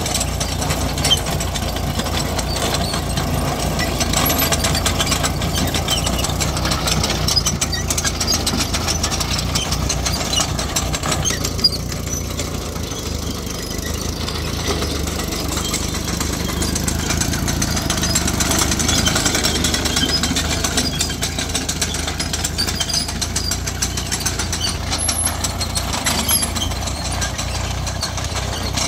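Small engine of a Panther crawler garden tractor running steadily under way, with a rapid chugging beat, easing off slightly about twelve seconds in.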